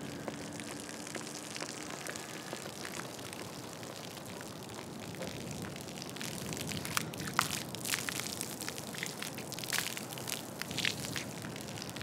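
A steady hiss with irregular crackles and sharp clicks, which grow denser and louder about halfway through.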